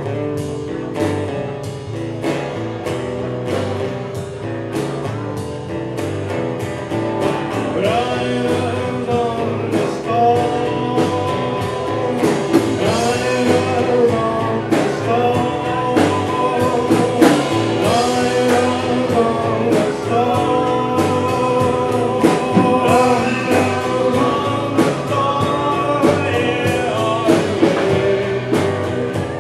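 Live band playing: strummed acoustic guitar and electric bass over a steady beat, with a man singing from about seven seconds in.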